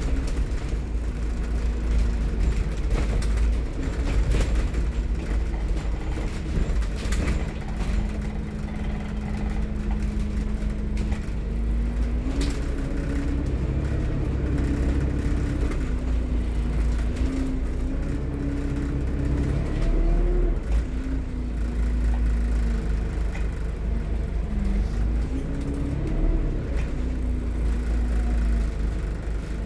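Alexander Dennis Enviro400 MMC double-decker bus running along, heard from inside the passenger saloon: a heavy low rumble with a drivetrain note that rises and falls as the bus speeds up and slows, and scattered rattles and clicks.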